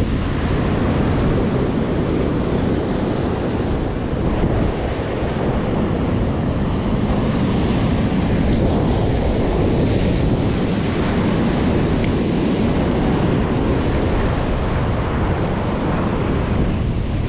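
Wind buffeting the action camera's microphone over heavy surf breaking on rocks: a loud, steady rushing noise.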